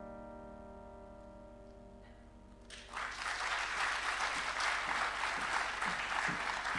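The last chord on a Roland digital piano rings and fades slowly; a little under three seconds in, an audience breaks into steady applause.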